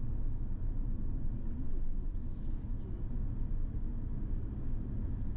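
Steady low rumble of a vehicle on the move, with a brief hiss about two and a half seconds in.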